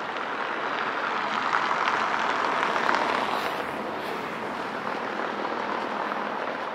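A vehicle passing on the street: a rush of noise that builds to a peak about two to three seconds in, then fades away.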